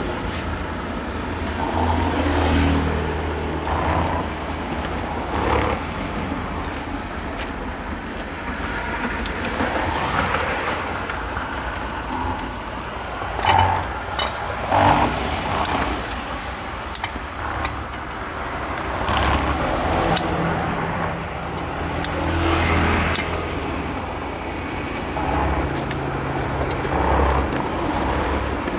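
Roadside traffic noise: a low rumble that swells and fades as cars pass, with a few short light clinks and scrapes of kitchen utensils at the food stall.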